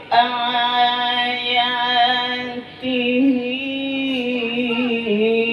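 A Qur'an reciter's high voice in the melodic qiro'ah style, holding long ornamented notes on one drawn-out word. There are two long phrases, with a short break for breath about halfway through.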